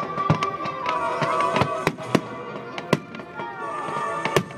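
A fireworks display going off: a string of sharp bangs from bursting shells, the loudest ones a second or so apart, over music.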